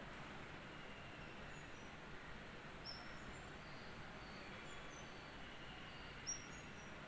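Faint outdoor background hiss with a few short, high chirps from small birds somewhere off in the trees, the clearest about three seconds in and again near the end.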